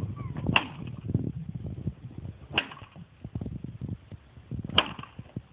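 A tennis racket smashing a computer motherboard: three sharp strikes about two seconds apart, with smaller knocks and rattling between them.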